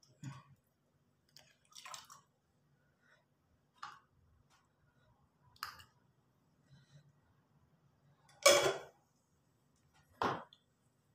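Stainless steel bowls, a steel mug and a ladle clinking and knocking against each other and the countertop, about one knock every two seconds, the loudest about eight and a half seconds in.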